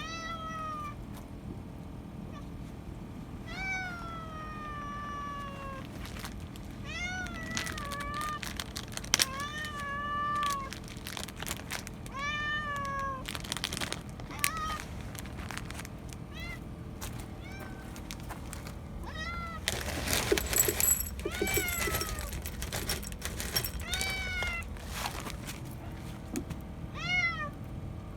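A cat meowing over and over, about a dozen meows a second or more apart, each rising then falling in pitch. A patch of clicks and rustling comes about two-thirds of the way in.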